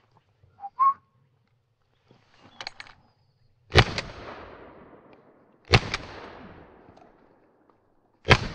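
Three shotgun shots about two seconds apart, each echoing away over a second or so. A short whistle sounds just under a second in, before the shots.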